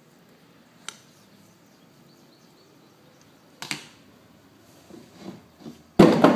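Handling noises from carving a clay tile: a light click about a second in, a brief scrape around the middle, a few small taps, and a loud knock near the end, as the carving tool and tile are moved on the work board.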